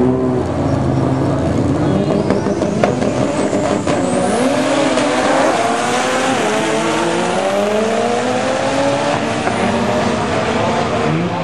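Turbocharged 1995 Mitsubishi Eclipse four-cylinder, running 47 psi on E85 through a GT4094R turbo, at full throttle down a drag strip: the revs climb in long sweeps and drop back about three times at the gear changes, then climb once more. The run comes with tyre squeal from wheelspin; the car spun its tyres through all of first gear and bogged in second.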